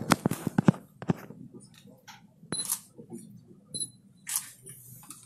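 Sharp clicks and knocks: a quick run of them in the first second, then scattered single clicks and short rustles.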